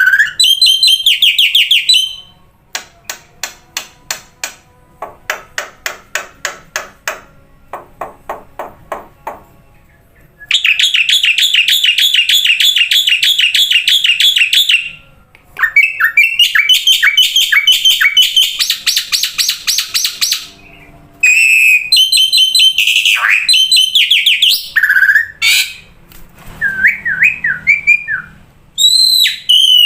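Songbird song in a series of separate phrases: a fast high trill, a run of sharp clicking notes that grow fainter, a long dense warble, rapid repeated notes, then clear whistles sliding down and up near the end.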